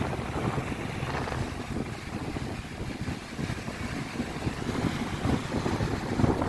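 Strong sea wind buffeting the microphone: a gusty, uneven low rumble.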